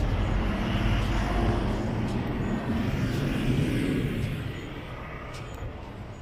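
A car driving past close by on the street, its engine heard steadily and then fading away about four seconds in, leaving quieter street traffic noise.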